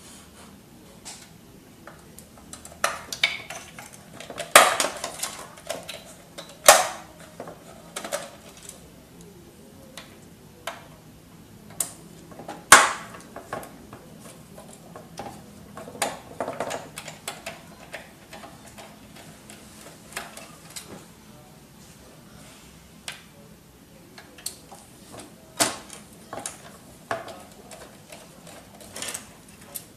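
Irregular clicks, knocks and clatter of plastic and metal parts inside an HP F2410 all-in-one printer being handled and prised loose during disassembly, with the sharpest knocks about four and a half, seven and thirteen seconds in.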